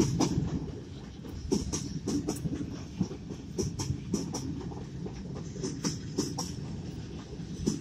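Empty timber wagons of a freight train rolling past, with a steady low rumble and wheels clacking over the rail joints at an irregular pace, about two or three clacks a second. Heard from inside a car through the glass.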